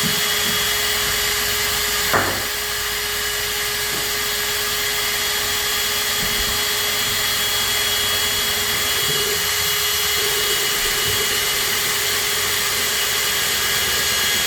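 Electric drill running steadily, its bit boring through thin sheet metal about 1 to 2 mm thick, with a constant motor hum and a high whine. There is a brief knock about two seconds in.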